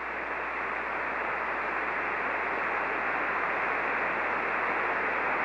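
Shortwave receiver hiss on the 75-meter amateur band between single-sideband transmissions: steady band noise with no voice, heard through the radio's speaker, growing slightly louder over the few seconds.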